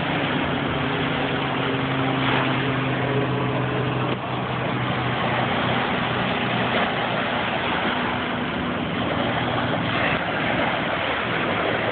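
Small surf washing up the beach in a steady wash of noise, with an engine idling underneath as a steady low hum that is strongest for the first four seconds and then fades.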